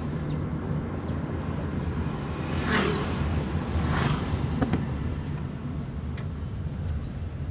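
Toyota Prius engine running with a low, uneven rumble. Two short hissing bursts come about three and four seconds in.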